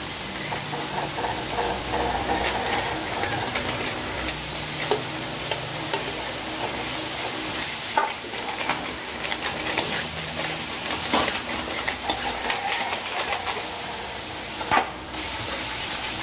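Vegetables sizzling as they sauté in an aluminium wok, with a spatula scraping and clacking against the pan as they are stirred; a few sharper knocks stand out.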